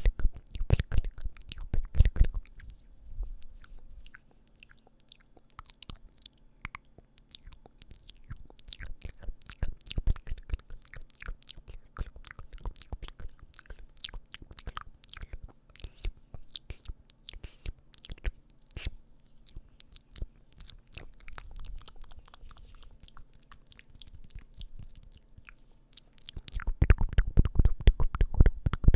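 Close-miked ASMR mouth sounds: a long run of wet clicks and smacks, denser and louder in the first couple of seconds and again near the end.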